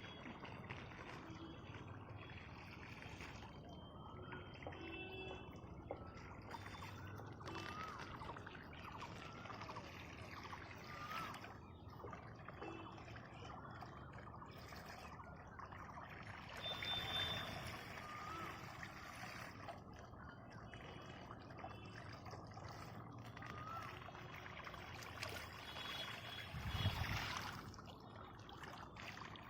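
Water gushing under pressure from the open end of a pipe and splashing down, a steady pouring rush, with a brief low thud near the end.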